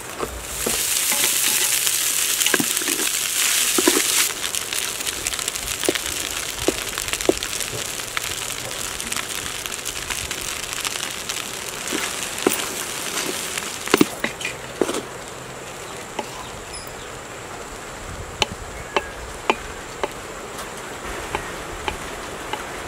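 A metal spoon stirring cooked rice in a large aluminium pot, with scattered knocks and scrapes against the pot's side over a steady background hiss. A louder hiss fills the first four seconds or so.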